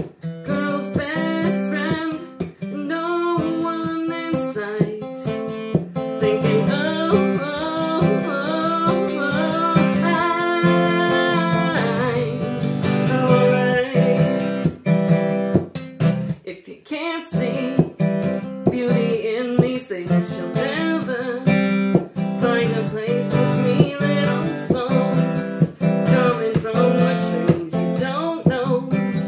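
Acoustic guitar strummed steadily, with a woman singing along.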